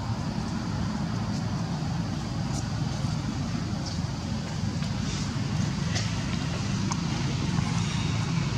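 Steady low outdoor rumble with a few faint ticks scattered through it.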